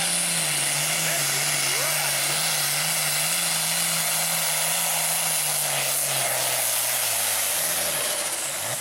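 Pulling tractor's diesel engine running flat out while it drags the weight sled. Its pitch sags slowly as the engine bogs down under the load, then drops and the sound eases near the end as the pull winds down.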